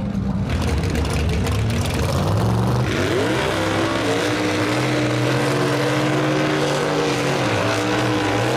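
Engine of a first-generation Chevrolet Camaro drag car running at a low, even pitch, then revved up about three seconds in and held at high revs for a burnout. Its rear tyres are spinning and smoking, with a dense tyre-spin noise under the engine.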